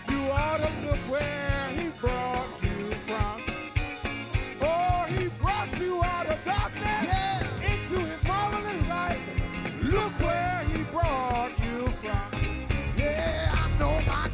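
A live worship band plays an upbeat song: a singing voice over electric guitar, bass, keyboard and a drum kit keeping a steady beat.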